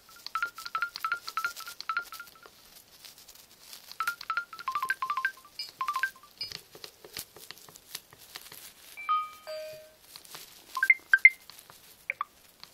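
Samsung SGH-E900 mobile phone playing short previews of its built-in SMS message tones through its small speaker: a run of quick repeated beeps, then different short chiming melodies as the selection moves down the list. Sharp clicks are heard between the tones.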